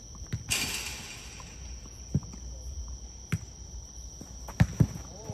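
Jokgu ball being struck during a rally: about five short, sharp thuds from kicks and bounces, roughly a second apart. Under them runs a steady high chirring of crickets, and a brief hiss comes about half a second in.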